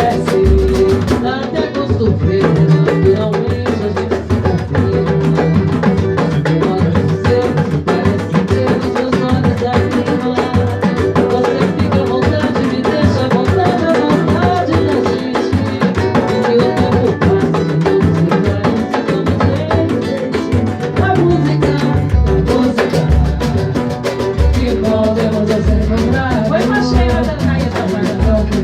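Band rehearsal music: a Latin-style groove with drums and other percussion under pitched instruments, playing steadily without a sung line.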